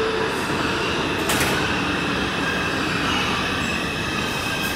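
New York City subway train at a station platform: its doors knock shut about a second in, then the train starts pulling out with a steady rumble and a thin, high wheel squeal that grows stronger near the end.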